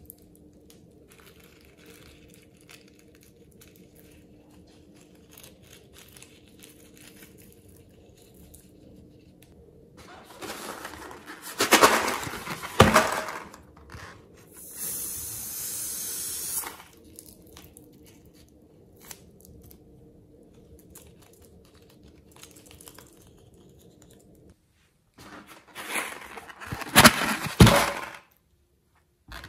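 Filled rubber balloons handled and squeezed and one cut open with scissors: a third of the way in and again near the end come loud crinkling, squeaking spells, and in the middle a steady hiss lasts about two seconds.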